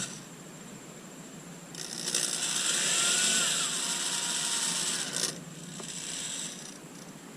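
Power drill driving a screw: the motor runs for about three and a half seconds with a whine that rises and then falls, then gives a shorter, quieter run near the end.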